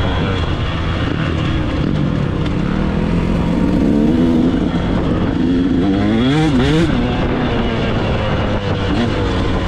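KTM dirt bike engine running under throttle as it rides along a dirt trail, its pitch wavering with the throttle and briefly revving up and down about six to seven seconds in.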